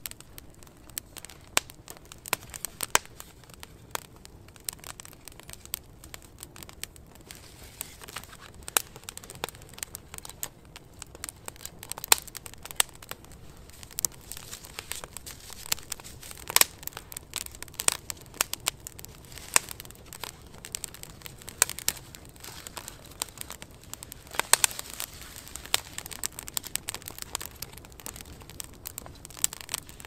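Wood campfire crackling: irregular sharp pops and snaps, with a few louder ones spread through.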